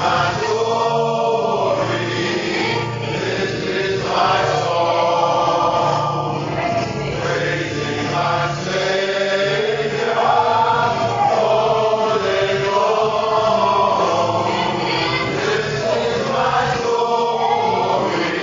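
A small vocal group of men and a woman singing a gospel song together into microphones.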